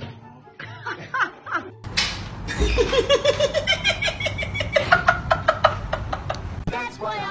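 A few short dog yelps, then a person laughing hard in a long run of quick breathy pulses that rise in pitch.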